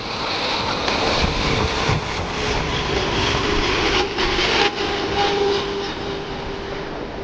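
Jet airliner passing close by: a loud rushing engine noise that swells, peaks mid-way and slowly fades, with a faint whine that drops slightly in pitch in the second half.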